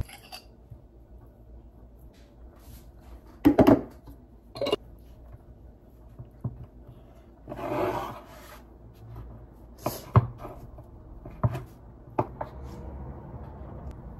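A knife cutting food on a chopping board: scattered sharp knocks, the loudest a quick cluster a few seconds in, and a short scraping rub about halfway through.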